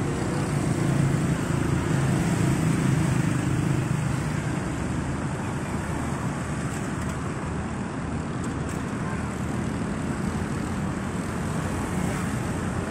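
Road traffic passing close by: a motorcycle engine going past in the first few seconds, then cars driving by with a steady hum of engines and tyres.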